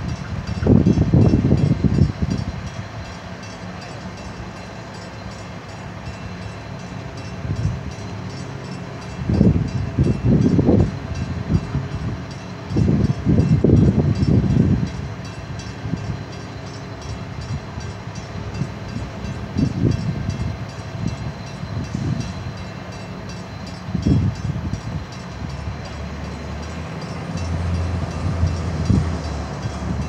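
Bascule drawbridge drive machinery running with a steady hum as the bridge leaf rises. Several loud low gusts of wind buffet the microphone over it.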